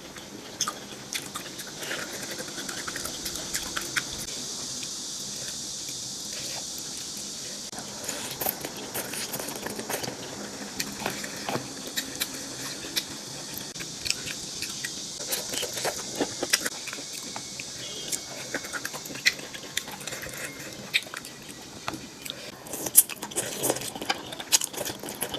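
Chewing and eating sounds: irregular small clicks and smacks over a steady high hiss.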